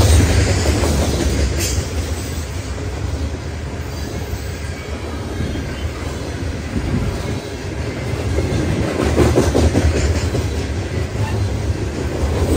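Freight train of open-top coal cars rolling past close by: a steady heavy rumble of steel wheels on the rails. It is loudest at the start, eases off a little, then swells again about nine seconds in.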